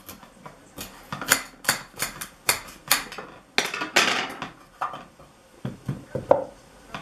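Kitchen knife cutting a raw carrot inside an enamel bowl: a quick run of sharp knocks as the blade strikes the enamel, then a longer scrape about halfway through. Near the end come a few duller knocks as carrot pieces drop into the plastic blender jar onto the fruit.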